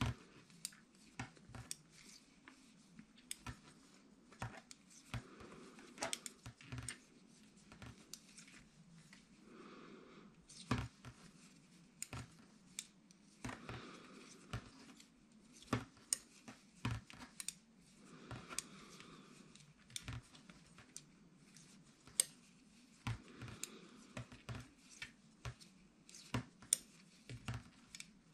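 Knitting needles clicking and tapping against each other at an uneven pace, a few sharp clicks a second with short pauses, as stitches are worked alternately knit and purl.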